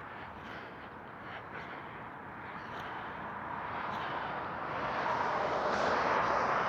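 Outdoor traffic noise: a steady rush that swells louder over the last couple of seconds as a vehicle approaches.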